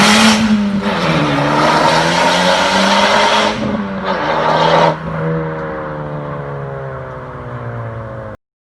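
Honda Civic Type R FK8's turbocharged 2.0-litre four-cylinder pulling hard. Its pitch drops on an upshift about a second in. The throttle closes, opens again for a short burst, then the engine coasts down with a slowly falling pitch. The sound cuts off abruptly near the end.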